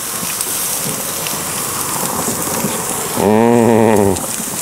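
Thick pork neck steaks sizzling on the hot grate of a gas grill, a steady hiss, searing over full heat.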